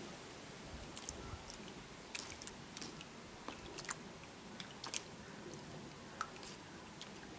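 Irregular sharp clicks and taps, about a dozen, of a Shetland sheepdog's claws on a shallow plastic tray as it paws about in it, over a steady faint hiss.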